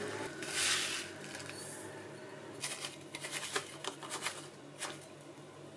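Dry ingredients poured from plastic bags onto a metal spoon over a bowl: a hiss of pouring sesame seeds about half a second in, then crinkling plastic bag and light spoon clicks as sugar is scooped. A faint steady low hum runs underneath.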